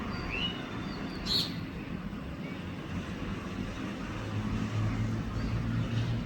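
A few short bird chirps, one rising, over a steady low hum that grows louder about four seconds in.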